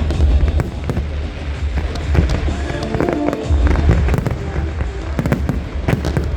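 Fireworks going off in quick succession, a dense run of bangs and crackles, with music playing underneath.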